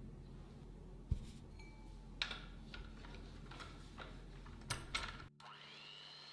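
A few light clicks and knocks, then an electric hand mixer switches on near the end: its motor whine rises quickly and settles to a steady pitch as the beaters start in the egg whites.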